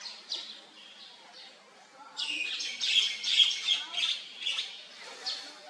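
High-pitched animal calls. Faint chirps come first, then a loud, dense run of choppy calls from about two seconds in to about four and a half seconds.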